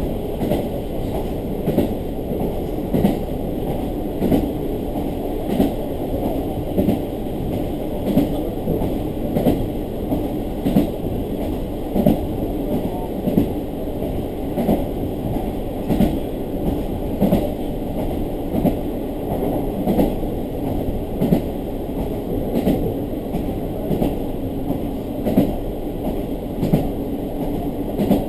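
Diesel railcar of a Hidaka Main Line local train heard from inside the carriage while under way: a steady low rumble of engine and wheels, with a wheel clack over a rail joint about every second and a half.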